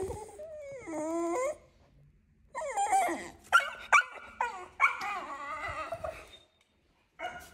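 Alaskan Klee Kai (mini husky) howling and whining. A short howl that dips and rises comes about a second in. From about two and a half seconds to six seconds there is a longer run of wavering, up-and-down cries with a couple of sharp yips.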